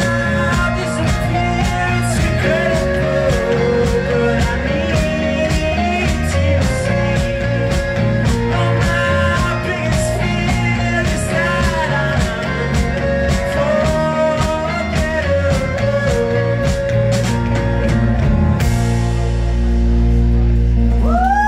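A live rock band plays with electric guitars, keyboard and a steady drumbeat. About eighteen seconds in the drums stop and the band holds a final chord that rings on, the close of the song.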